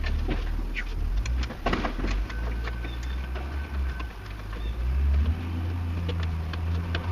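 Hand tools clicking and knocking irregularly against metal as a nut is worked loose behind a vehicle dash, over a steady low rumble.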